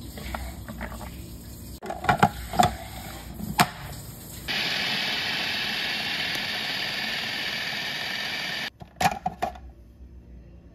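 A few knocks and clatters, then an electric food chopper's motor runs steadily for about four seconds, chopping boiled chana dal, and cuts off suddenly, followed by a couple more clicks.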